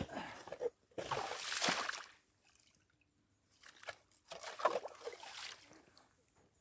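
Slushy water sloshing and splashing at a hole in wet, slush-covered lake ice, in two bursts: one about a second in and another after about four seconds. Water has come up onto the ice.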